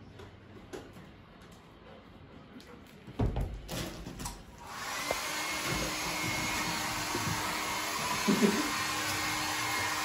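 A few low bumps, then a handheld electric hair dryer switches on about five seconds in and runs with a steady rushing blow and a faint hum. A brief pitched sound rises over it about eight seconds in.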